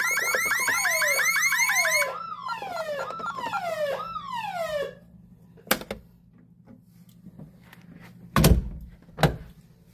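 Honeywell Vista 20P alarm siren sounding a fast warbling alarm tone, which stops abruptly about two seconds in as codes are keyed in at the keypad. A quieter falling sweep repeating about twice a second runs on until about halfway, then a click and two thumps near the end.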